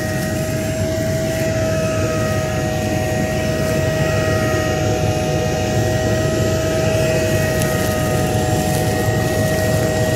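Tractor and its seeding implement running steadily at a working idle: a low engine drone with a steady high whine over it. The noise is loud and unchanging.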